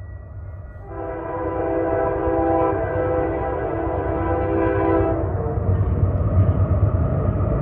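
Freight train's diesel locomotive sounding one long multi-chime air horn blast of about four seconds. After the horn stops, the low rumble of the approaching locomotives grows louder.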